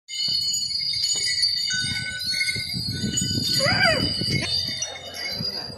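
Metal bells on a decorated temple elephant's harness jingling and ringing steadily as she walks. A brief rising-and-falling high cry cuts in about three and a half seconds in.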